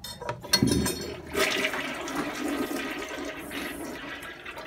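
Toilet flushing: a short clunk as the handle is pushed down about half a second in, then a steady rush of water through the bowl.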